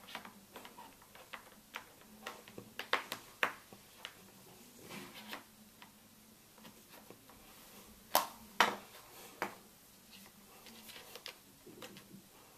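Scattered light clicks and taps of a flat USB charging cable and its plastic plug being handled and laid into a cardboard packaging tray. The sharpest two clicks come close together about eight seconds in.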